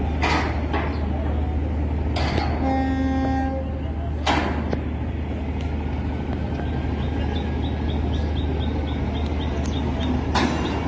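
Horn of a river passenger launch, one steady blast of about a second, over the steady low hum of its engines. Several short noisy whooshes break in over the hum.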